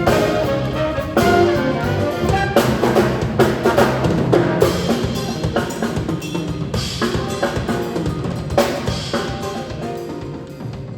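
An ensemble playing: a drum kit keeps a beat under brass instruments.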